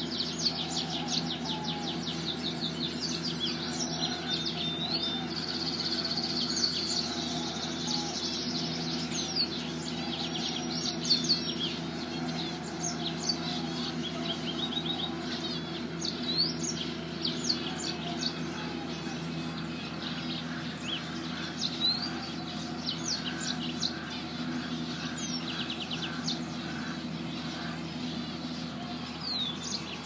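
A flock of zebra finches chirping and calling together, a dense run of short, high, nasal calls that keeps up without pause, over a steady low hum.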